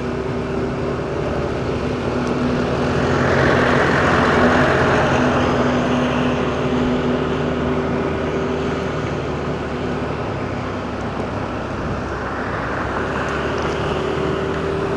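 Car driving: steady engine hum and road noise heard from inside the car, swelling louder twice, about four seconds in and again near the end.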